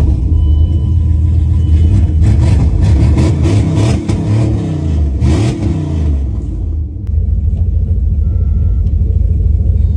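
Second-generation Dodge truck's engine, just started after sitting in the yard, revved up and down several times, then settling to a steady idle about seven seconds in.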